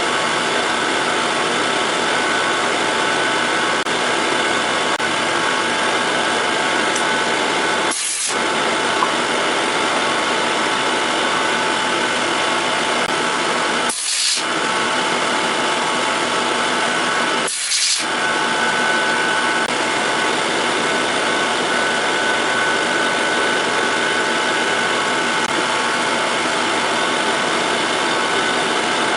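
Milling machine running steadily with its cutter taking metal off the back of a Colt 1911 pistol frame, the table traversed back and forth to bring the high side down about 60 thousandths level with the other. The steady machine noise breaks off for a moment three times, about a third of the way in, at the middle, and soon after.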